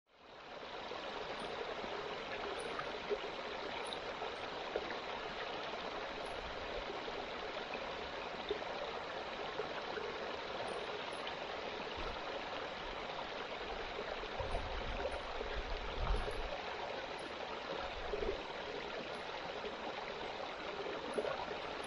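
Small moorland stream trickling and splashing over rocks in a steady wash of water, with a brief low rumble about two-thirds of the way through.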